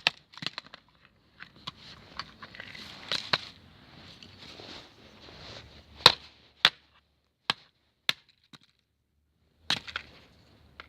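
Stanley knife stabbing and scraping at a plastic TV remote control: irregular sharp knocks and scratching, the hardest strikes about six seconds in. A silent gap follows, then a couple more knocks near the end.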